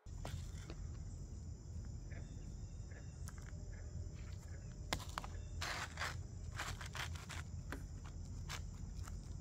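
Steady high insect drone, with scattered short clicks and a brief scrape, about six seconds in, from asphalt ridge cap shingles being handled and set on the ridge.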